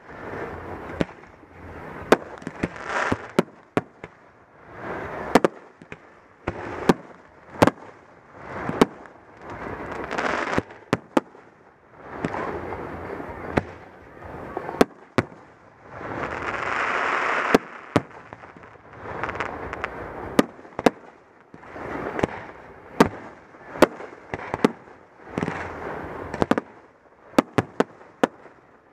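Fireworks display: aerial shells going off in sharp bangs every second or two, with swells of rushing noise between them and a quick run of bangs near the end.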